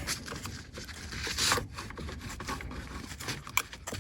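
Small Torx screwdriver backing a long screw out of the gear selector housing: faint scraping with small clicks, and a louder scrape about a second and a half in.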